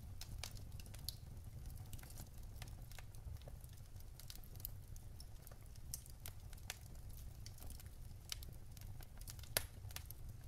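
Wood fire burning in a fireplace: irregular crackles and small pops from the burning logs over a low steady rumble, with one sharper pop near the end.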